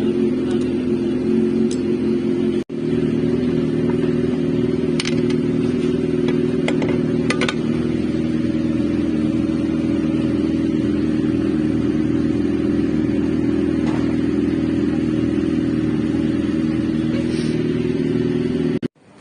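Harley-Davidson V-twin motorcycle engine idling steadily, with a few faint clicks about five to seven seconds in.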